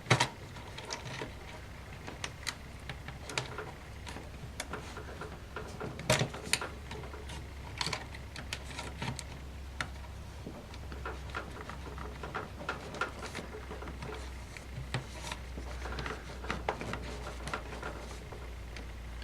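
Scattered small clicks and taps at irregular intervals as the laptop's internal cable connectors and ribbon-cable latches are unclipped, over a low steady hum.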